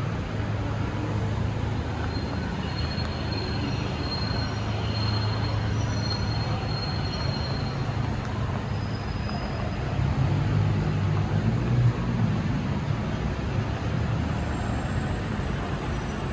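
Steady low rumble of passing vehicles, swelling about ten seconds in, with a faint high whine early on.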